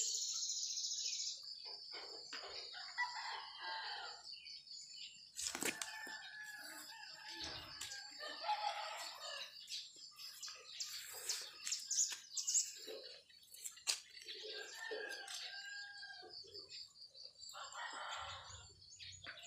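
Chickens clucking with a rooster crowing, over a steady high hiss and a few handling clicks.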